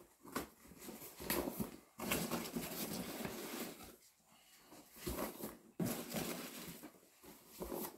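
Foam packing peanuts rustling in a cardboard box as hands dig through them, in irregular stretches with a short lull midway.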